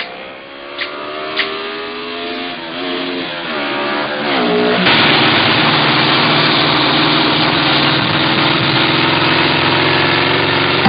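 Cartoon sound effect of a motorcycle engine revving up, its pitch rising in steps, then running loud and steady from about five seconds in.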